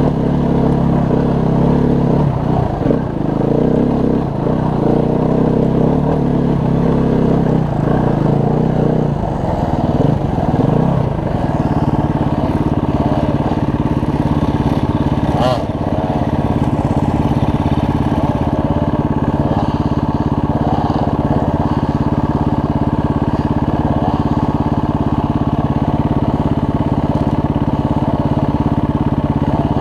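Dirt bike engine running under throttle, its pitch shifting, for the first ten seconds or so, then settling into a steady idle for the rest.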